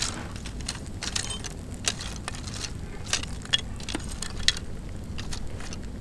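Small fire of gathered twigs crackling, with irregular sharp pops, over a low rumble of wind on the microphone.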